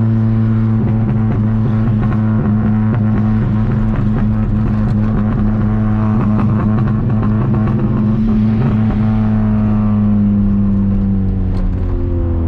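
1999 VW Gol G2's 1.0 8-valve four-cylinder engine through an HKS 4-inch sport muffler, droning at a steady pitch while the car drives along. Near the end the pitch falls as the car slows.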